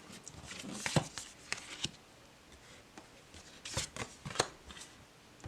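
Tarot cards handled by hand: quick papery slides and taps of card on card and on the table. They come in a flurry in the first two seconds and again about four seconds in.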